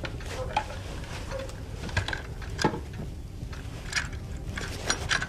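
Scattered clicks and knocks of guns being handled and lifted out of a wooden wardrobe's hidden gun rack, over a low steady hum.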